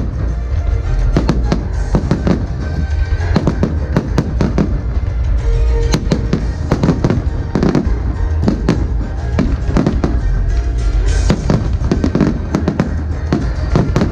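Fireworks display going off in dense, rapid volleys of bangs, several a second, over a constant low rumble of shells, with the show's music playing underneath.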